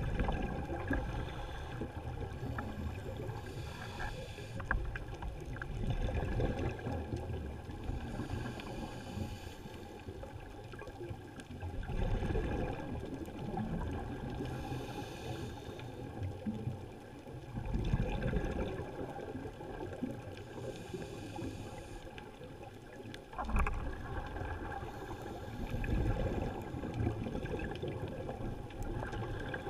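Scuba regulator breathing underwater: a hiss on each inhale alternating with a rush of exhaust bubbles on each exhale, repeating about every six seconds.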